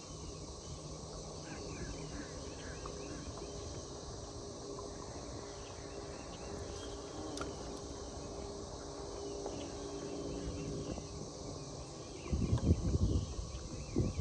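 Steady insects droning with a few small bird chirps over faint steady low hum. About twelve seconds in, louder low thumps and rumbling begin.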